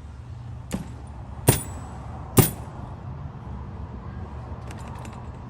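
Three sharp metallic clicks of brass key blanks being handled and set down, the second and third the loudest, with a few faint ticks near the end, over a steady low shop hum.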